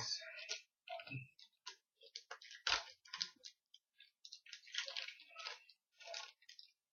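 Football trading cards being flipped through and slid off the stack by hand: quick, irregular rustles and flicks of card stock, with one sharper knock about three seconds in.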